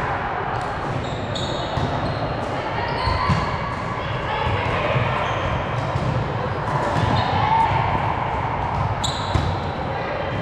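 Indoor volleyball play in a gym: sneakers squeak in short, sharp chirps on the court floor over a murmur of players' voices echoing in the hall.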